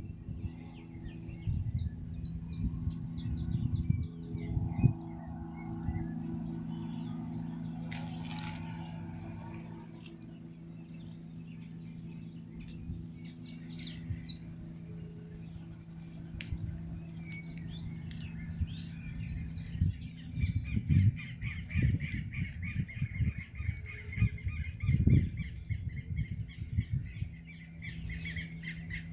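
Birds calling outdoors: repeated short chirps and whistled notes, over a steady high-pitched whine and a steady low hum. From about two-thirds of the way in, a rapid pulsing trill joins them.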